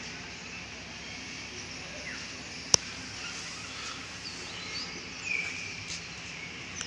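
Outdoor ambience: a steady background hiss with a few faint, scattered bird chirps, and one sharp click a little before the middle.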